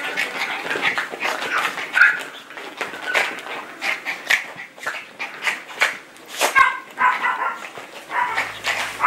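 Two Yorkshire terrier puppies play-fighting: short high yips and little barks come in quick bunches, the busiest run a little past halfway, over the scuffling of paws on a fabric couch cover.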